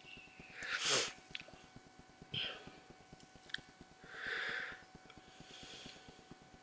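A few short rustling noises and light clicks close to the microphone over a faint steady hum, the loudest rustle about a second in and a longer hiss-like one just past the middle.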